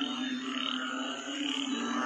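Banded bullfrogs (Asian painted frogs) calling: a deep, droning note that barely breaks, with fainter, higher calling swelling and fading over it.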